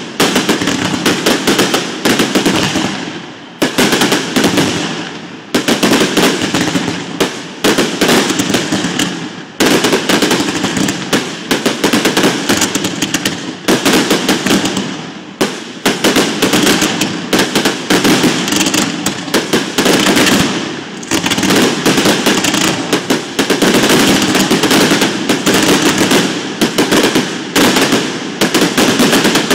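A continuous barrage of aerial firework bursts, loud and close, with many sharp bangs and crackles a second coming in rolling waves.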